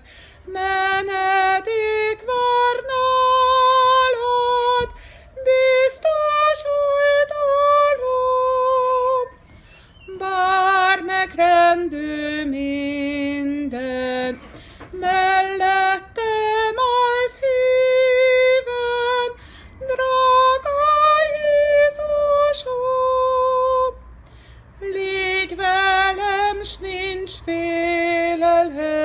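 A woman singing a Hungarian hymn solo and unaccompanied, in slow held notes, pausing briefly between phrases.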